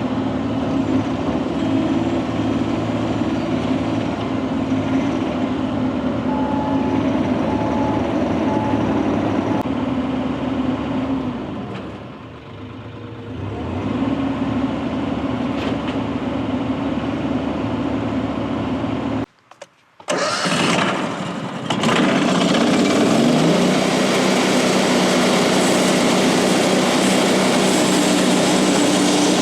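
Engine of a compact track loader running steadily, easing off briefly about twelve seconds in. After a break it comes back louder, revs up, and holds a higher steady speed.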